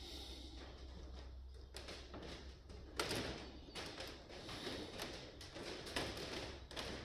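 Rustling and light clicks and knocks of things being handled, busier from a sharp click about three seconds in, over a steady low hum.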